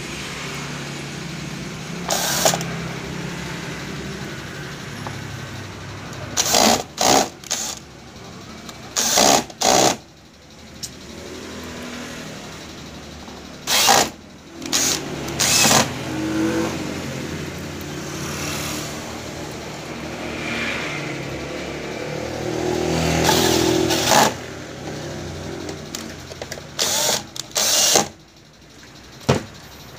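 Cordless drill-driver running in about a dozen short bursts, grouped in clusters, as it drives screws, over a steady low engine-like hum.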